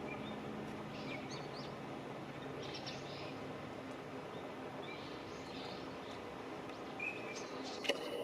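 Small songbirds giving scattered short, high chirps over a steady background hiss, with a sharp click near the end.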